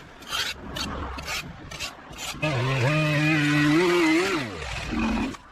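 Several short rasping scrapes in the first couple of seconds. Then a steady pitched motor hum holds for about two seconds and slides down in pitch as it dies away.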